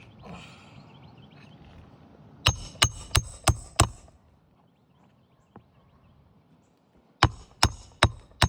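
Hammer driving roofing nails into asphalt shingles: five quick, ringing blows at about three a second, a pause, then four more near the end.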